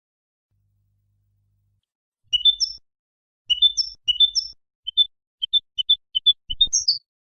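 European goldfinch singing: short bursts of high, quick twittering notes that begin about two seconds in and come in several phrases with brief gaps.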